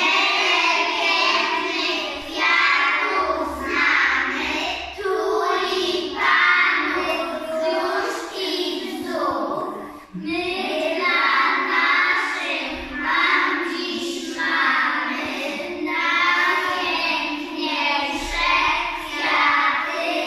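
A group of young children singing a song together in unison, phrase after phrase, with a brief break about ten seconds in.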